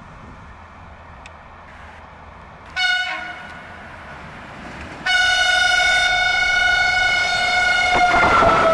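Electric locomotive horn of an approaching passenger train: a short blast, then about two seconds later a long steady blast that drops slightly in pitch as the locomotive draws level. Wheel and track noise rises under it near the end as the train passes.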